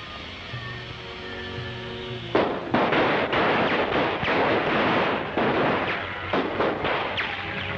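Background film music, then about two and a half seconds in a sudden burst of gunfire breaks out and goes on, many shots following close on one another in an old, narrow-sounding film soundtrack.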